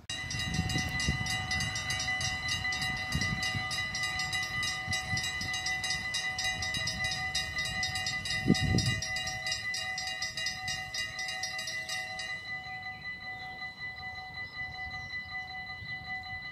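Train with an electric locomotive running close by: a steady whine of several tones over a low rumble and knocks, with one heavy thump about eight and a half seconds in. A fast, even ticking in the high range stops about twelve seconds in while the whine carries on.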